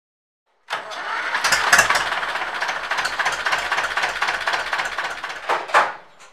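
Ursus C330 tractor's two-cylinder diesel engine running with a rapid, even rattling knock, starting suddenly under a second in, with two louder bursts near the end.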